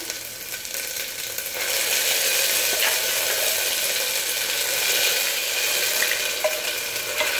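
Hot oil with whole spices and ginger-garlic paste sizzling in the base of a stainless-steel pressure cooker. The sizzle is a steady hiss that grows louder about a second and a half in.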